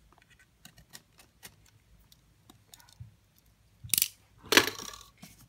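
Faint clicks and ticks of a small knife slitting the tape on a cardboard box, then, about four seconds in, a sharp clatter as the metal knife is set down on the desk, followed by a louder scrape of the box being handled.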